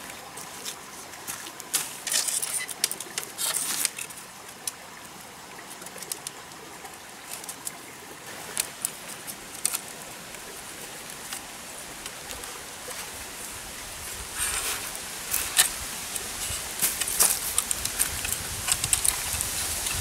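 Irregular rustling and crackling, with clusters of sharp clicks, over a steady background hiss. It is busiest about two to four seconds in and again over the last six seconds.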